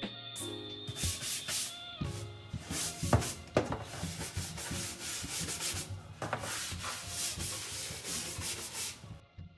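Hard scrubbing on the floor of an under-sink kitchen cabinet: a brush or pad rubbed back and forth in quick, uneven strokes, stopping shortly before the end. Soft background music runs underneath.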